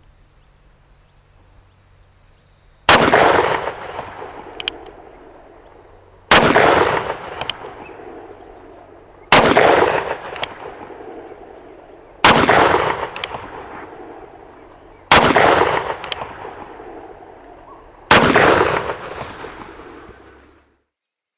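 Ruger Blackhawk single-action revolver in .30 Carbine fired six times, one shot about every three seconds, each shot with a long fading echo. A faint click comes between shots as the hammer is cocked by hand for the next one.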